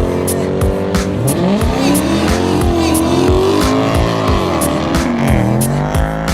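A car engine revving hard, its pitch swooping up and down over and over, under music with a steady, quick beat.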